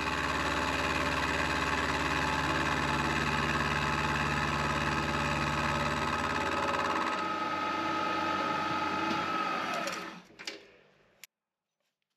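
Milling machine running an end mill that faces a T-nut to length, a steady machine hum with cutting noise. About seven seconds in the low rumble drops away. Near the end the spindle winds down with a falling tone before the sound cuts off suddenly.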